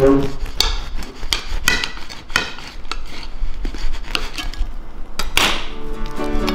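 Knife sawing through the crisp crust of a freshly baked white loaf, a run of short crunching and scraping strokes with the blade knocking on the plate. Near the end there is a louder rasp as the loaf is torn apart by hand.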